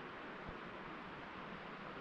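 Faint, steady outdoor hiss of a light wind, with one soft low bump about half a second in.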